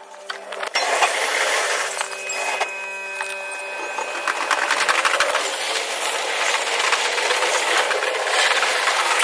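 Electric train heard from inside its driver's cab while running: a rushing running noise with a steady hum that drops out around five seconds in and a brief set of higher steady tones in the middle.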